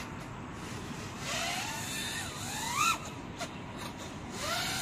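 GEPRC Mark5 5-inch FPV quadcopter's brushless motors whining overhead, the pitch climbing as the throttle is punched in the middle and cutting off sharply about three seconds in, then climbing again near the end.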